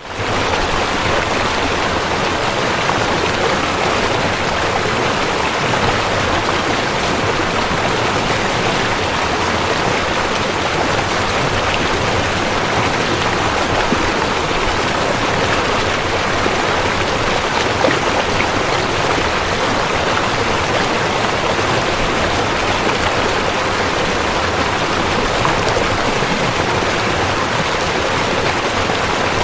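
Rushing river water, a loud, steady rush that holds even throughout.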